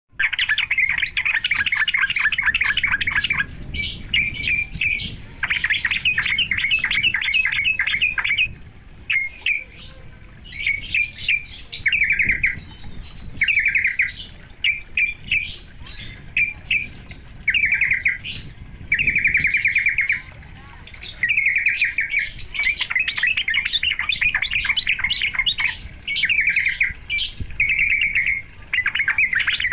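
Sooty-headed bulbul (trucuk) calling: bursts of rapid chattering trills and short repeated phrases with brief gaps between them. It is a lure recording meant to fire up caged bulbuls into singing.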